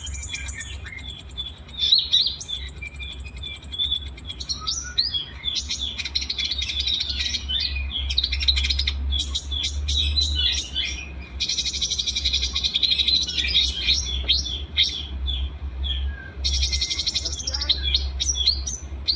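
Several small songbirds singing together in rapid chirps and trills, with high thin trills that start and stop. A steady low hum runs underneath.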